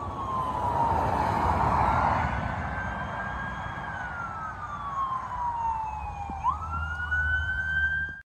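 A siren wailing, its pitch sliding slowly down and up, with a quick rise about six and a half seconds in, over a low rumble. It cuts off suddenly near the end.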